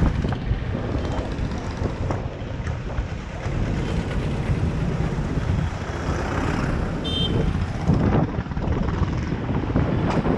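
Wind buffeting the microphone of a camera carried on a moving scooter, over the rumble of the scooter and surrounding street traffic. A short high beep sounds about seven seconds in.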